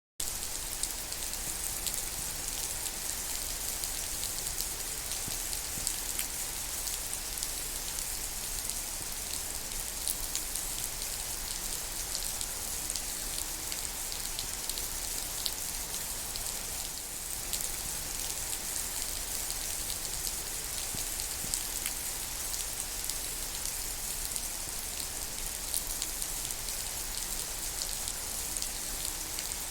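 Steady rain falling, an even hiss with many small drop ticks.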